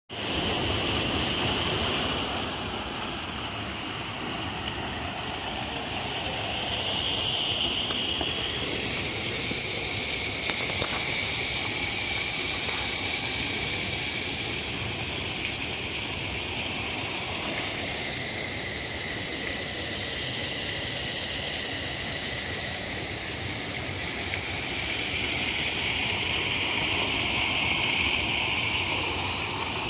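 Steady rush of water from a small waterfall pouring into a pond.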